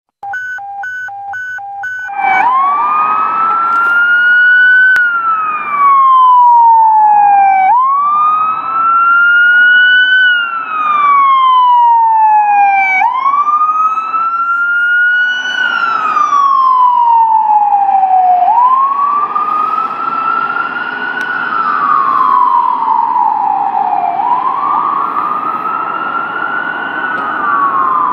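Whelen electronic siren on a 2015 International TerraStar / Horton ambulance sounding its wail: slow sweeps rising and falling about every five seconds, over road noise. The siren starts about two seconds in, after a rapid pulsing steady tone.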